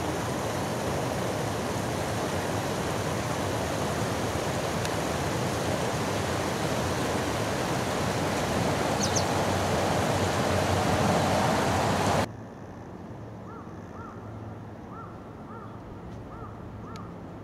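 River water rushing over a low concrete weir, a steady wash of white water that grows a little louder, then cuts off abruptly about twelve seconds in. What follows is a quieter background with a low hum and a run of about six short, evenly spaced calls.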